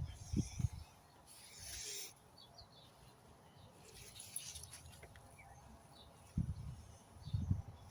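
Faint birds chirping in the background. There are two brief hissing rustles, about a second and a half in and about four seconds in, and a few low bumps of wind or handling on the microphone near the start and near the end.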